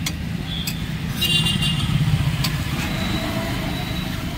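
Steady rumble of road traffic, swelling about a second in, with sharp scrapes and taps of a metal spatula spreading masala over a dosa on a flat griddle.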